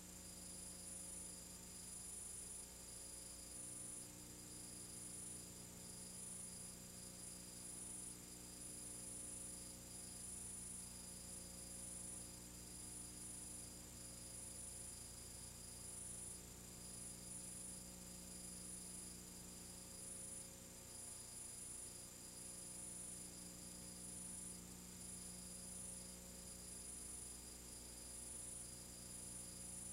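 Faint steady electrical hum with hiss and no other sound: the background noise of a silent film's video transfer.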